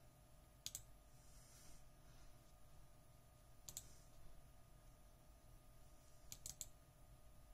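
Computer mouse button clicking: a pair of clicks about a second in, another near the middle, and a quick run of clicks near the end, over a faint steady hum.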